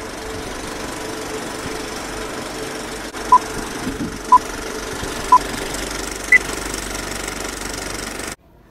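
Old-film countdown leader sound effect: a film projector running with a steady clatter, three short beeps a second apart, then a fourth, higher beep. It all cuts off suddenly near the end.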